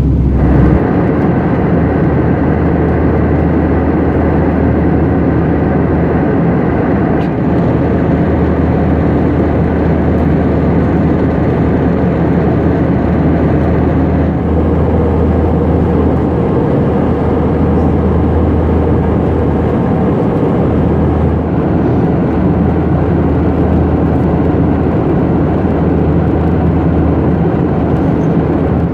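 Steady cabin noise of an Airbus A319 airliner in the cruise: an even rush of airflow and engine noise with a deep low rumble, heard from inside the passenger cabin.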